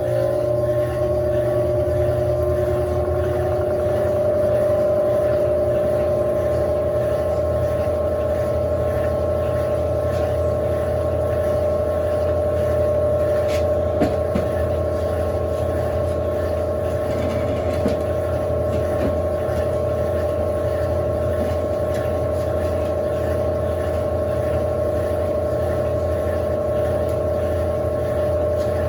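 Electrolux LAC16 top-loading washing machine spinning: a steady low hum with a motor whine that rises in pitch in the first second and then holds level, as the drum reaches spin speed.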